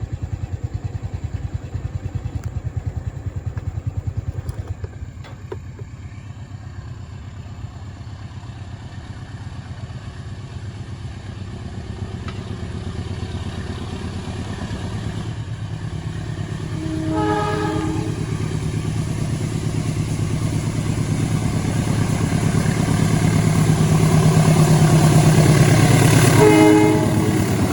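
Train approaching with a steadily growing rumble, sounding its horn in short toots about two-thirds of the way through and again near the end, the driver's friendly greeting toot.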